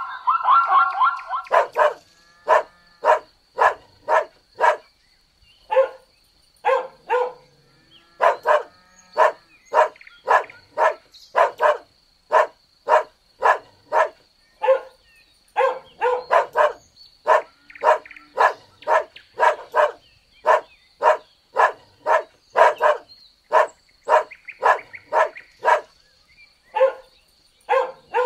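A dog barking over and over, about two barks a second in runs with short pauses. In the first second or so there is a different, higher pitched call.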